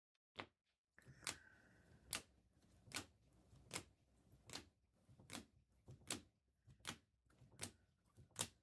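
A row of sharp taps, about one every 0.8 seconds and ten in all: trading cards being laid down one after another during a recap of the pulls.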